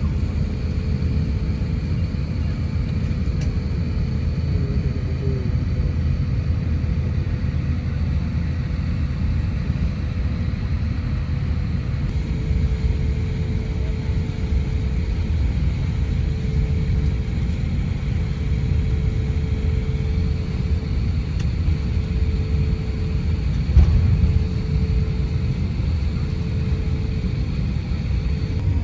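Airbus A350-900 cabin noise with the Rolls-Royce Trent XWB engines running: a steady low rumble. From about halfway, a faint tone pulses on and off at even intervals, and a single thump comes a few seconds before the end.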